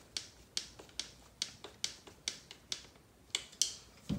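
Small hex driver turning a screw into a plastic RC car shock tower and transmission case: a steady run of short sharp clicks, about two a second, then a dull knock near the end as the tool or part is set down.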